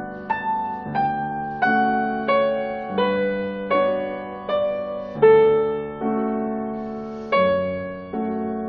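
Background music: a slow piano melody, single notes struck a little over once a second, each ringing and fading away.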